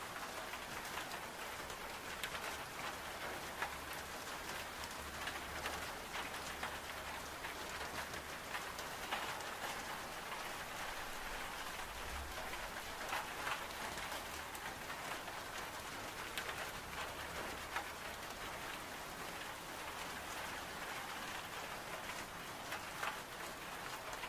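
Steady rain on window glass mixed with the crackling of a wood-burning stove fire: an even hiss dotted with many small ticks and pops.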